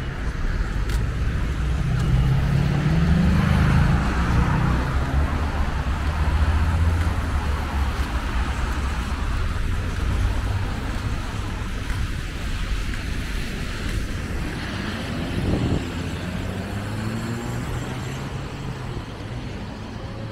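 City road traffic on wet roads: cars passing and pulling away, with tyres hissing on the wet surface. Engines rise in pitch a couple of seconds in and again near the end, over a steady low rumble.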